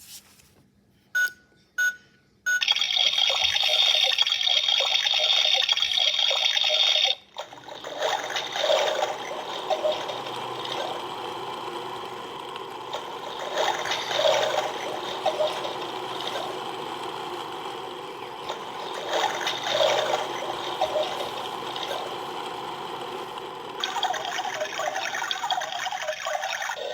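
Toy washing machine starting up: two short button beeps, then a rushing water sound for about five seconds, then the drum's small motor whirring with a churning swell every five or six seconds.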